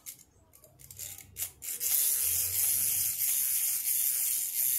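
Small crawling baby-doll toy's gear mechanism whirring steadily as it crawls, starting about a second and a half in, after a few light clicks as it is handled and set down.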